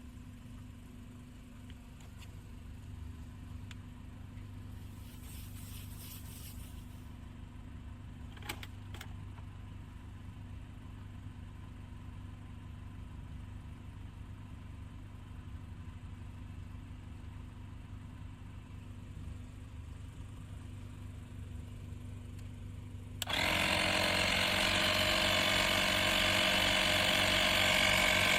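Car engine idling with a steady low hum, with a few light clicks. About 23 seconds in, a 12 V portable tyre inflator switches on abruptly and runs with a loud, steady buzzing whine.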